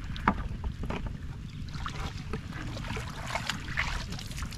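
Wind rumbling on the microphone, with short wet splashes and squelches of bare feet in muddy water and a sharp knock near the start, like a plastic bucket being handled.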